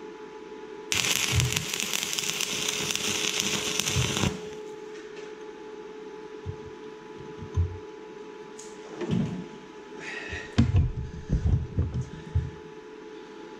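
Electric arc welding on steel held in a vise: a steady crackling hiss for about three seconds that stops abruptly. A steady hum runs underneath throughout. Several knocks follow, then a quick run of clanks near the end.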